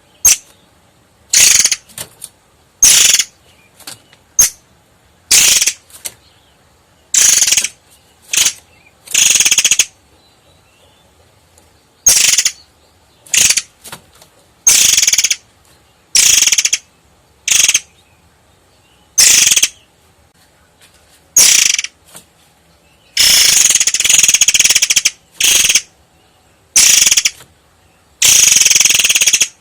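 Long-tailed sibia singing: short, sharp, high-pitched phrases repeated about once a second, with two longer phrases in the last few seconds.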